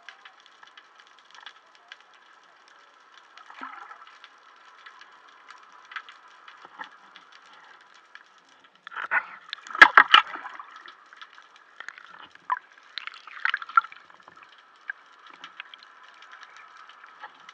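Muffled underwater sound picked up through a camera's waterproof housing: water moving, with small scattered clicks and crackles. There is a louder burst of noise about nine to eleven seconds in, a smaller one around thirteen seconds, and bubbles rising past the diver near the end.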